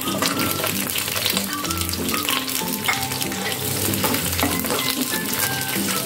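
Chunks of onion and capsicum sizzling as they start frying in hot oil in a frying pan, stirred with a wooden spatula. Faint background music plays underneath.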